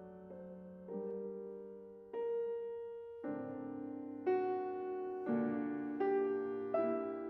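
Slow, gentle piano music: soft chords struck about once a second, each left to ring and fade.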